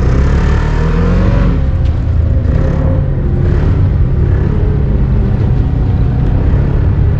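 Ski-Doo snowmobile engine running under throttle at speed, its pitch rising in the first second or so and then holding steady, with gusts of rushing noise over it.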